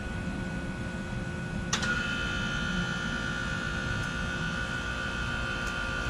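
A 2010 Trane XL15i heat pump's outdoor unit kicking on in cool mode: a sharp click about two seconds in, then its reciprocating compressor and fan start and run with a steady hum and whine. Wind rumbles on the microphone throughout.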